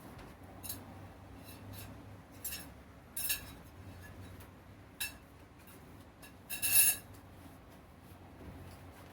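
A handful of light clicks and clinks, about five spread over several seconds, the loudest and longest about two-thirds of the way through, over a faint low hum.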